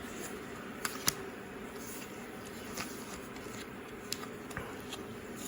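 Faint handling of trading cards, with a few light clicks and taps as cards are moved and set down, over a steady low room hum.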